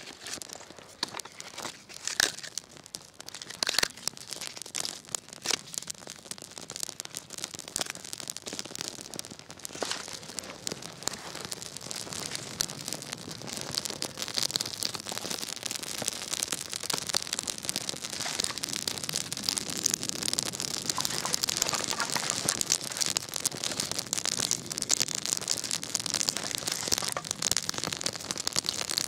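Small fire of birch bark and dry sticks crackling as it catches, with dry bark and wood rustling as they are laid on. The crackle gets denser and louder about halfway through as the fire takes hold.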